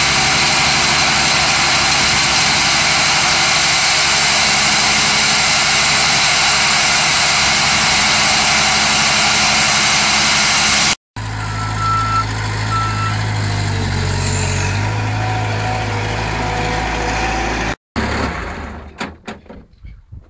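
Machinery running steadily and loudly. After a sudden cut, an engine hums lower, with two short high beeps. After a second cut come a few knocks that fade away.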